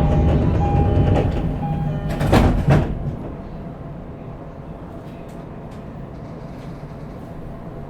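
Running noise heard from inside a JR East E231-series suburban electric train with Hitachi IGBT inverter drive: a rumble of wheels on rail, louder for the first three seconds with a short sharp rush about two and a half seconds in, then settling into a steadier, quieter run.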